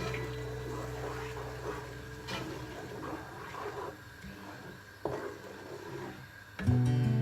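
Background music trails off, leaving faint clatter with two sharp knocks. Loud music comes back in near the end.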